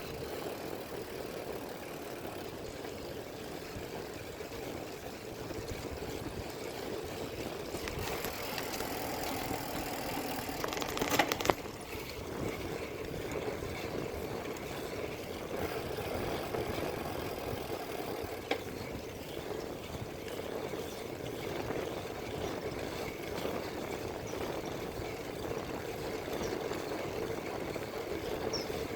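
Steady motor-vehicle noise with a sharp click about eleven seconds in.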